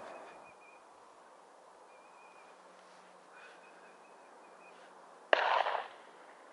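A single gunshot during a moose drive, sharp at the start and dying away with a short echo about five seconds in. Before it there is quiet outdoor background with a few faint, short high chirps.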